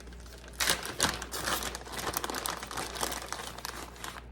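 Crinkling of the plastic packaging of shredded mozzarella cheese as it is handled and the cheese is shaken out: a dense crackly rustle that starts about half a second in and runs until just before the end.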